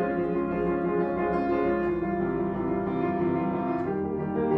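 Slow piano music with held chords that change about every two seconds.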